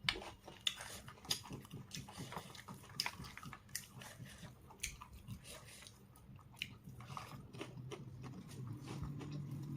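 Close-up chewing and biting of a KFC fried chicken meal: many short crunchy, wet clicks of mouth and food throughout. A low hum joins in over the last couple of seconds.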